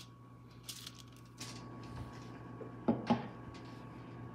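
Quiet handling noises as raw bacon strips are laid out on a broiling pan, with two brief knocks close together about three seconds in, over a faint steady hum.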